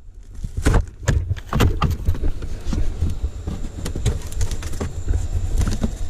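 Handling of lightweight exhaust pipes and their packaging: a string of irregular knocks, clinks and rustles over a steady low rumble.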